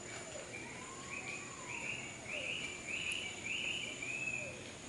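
Tropical jungle ambience: an animal repeats a short raspy call about seven times in a row, growing louder then fading, over a thin steady high whine and faint whistled notes.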